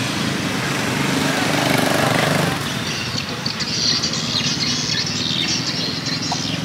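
A motor vehicle engine running amid street traffic noise, with indistinct voices in the background. A higher hiss comes in about three seconds in.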